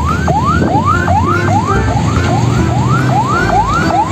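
Electronic siren repeating a quick rising whoop, about three a second, over a steady low rumble.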